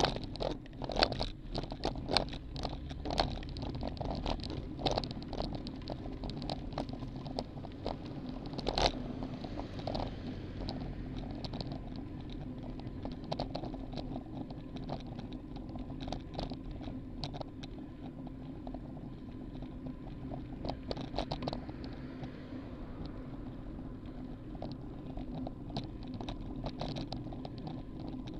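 Road bike rolling on pavement, heard through a camera mounted on the bike: a steady low rumble from the road and air, with frequent sharp rattling clicks from the bike and mount over bumps. The clicks are thick in the first ten seconds and thin out after that.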